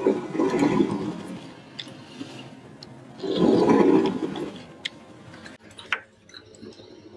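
Metal-tipped pen scraping across paper in two long strokes, with a few light taps of the pen later on.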